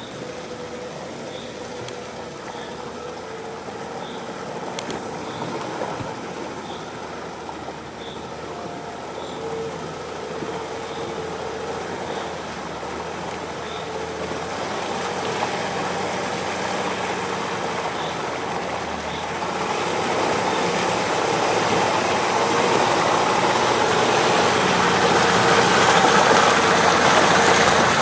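Nissan Patrol SUV's engine running at low speed as it crawls through deep mud, growing steadily louder as it approaches. The churn and splash of tyres in mud and water build up over the last several seconds.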